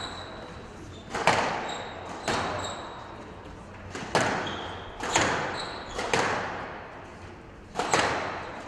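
A squash rally: the ball is struck with rackets and hits the court walls in about six sharp, echoing cracks roughly a second apart, with short high squeaks between the hits.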